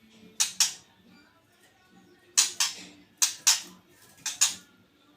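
White-rumped shama giving harsh, rasping double calls, four pairs each about a fifth of a second apart.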